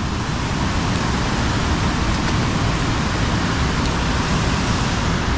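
Steady rush of water churning through a spillway.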